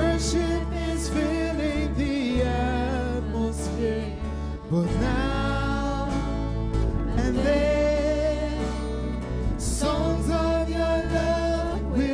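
A live worship band plays a song: several voices sing together over acoustic guitar, with a flute and keyboard in the band.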